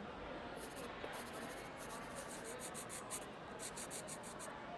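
Indoor ambience of a student centre: a steady low murmur with faint distant voices, and clusters of short scratchy clicks and rubbing noises coming and going.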